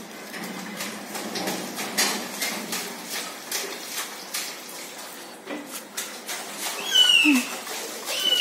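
Children playing at a bath tub of water: scattered clatters, knocks and splashes, then a child's high-pitched squeal near the end.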